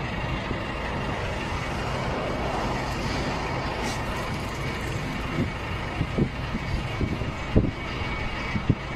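Steady road traffic and engine noise heard from inside a car, with a low engine hum underneath and a few short low bumps in the second half.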